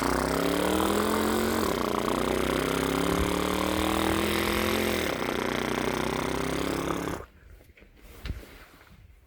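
A person imitating a V8 engine with his voice: a buzzing drone that climbs in pitch, falls back, climbs again, falls back, then stops about seven seconds in.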